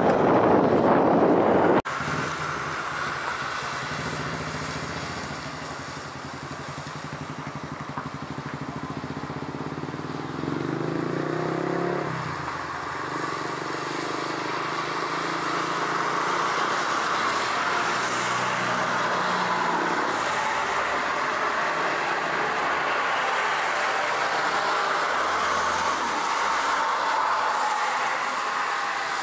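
A loud rush cuts off abruptly about two seconds in. After it, the jet engines of a Boeing 777-300ER (GE90-115B turbofans) on its arrival run with a hum that stops about halfway through and a whining roar that grows slowly louder.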